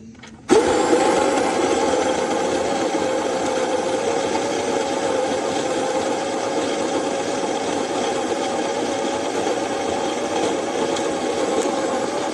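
Baratza Encore ESP electric burr coffee grinder switching on about half a second in and running steadily, its motor and burrs grinding coffee with an even, unchanging hum.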